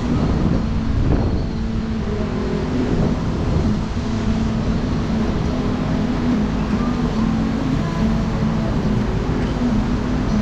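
Road traffic: vehicle engines humming steadily under a constant rush of noise, with wind on the microphone.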